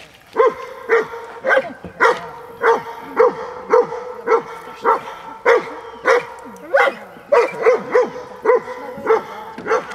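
A large dog barking over and over, about two sharp barks a second, with a few quicker barks in the middle; eager, worked-up barking from a very keen dog held back from the water.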